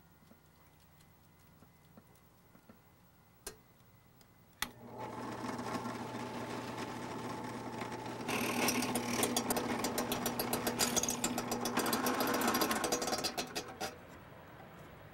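A benchtop drill press is switched on with a click about a third of the way in, and its motor runs with a steady hum. A few seconds later the twist bit bites into a wooden handle scale, adding a loud, rough crackling cutting noise. The cutting stops near the end and the level drops.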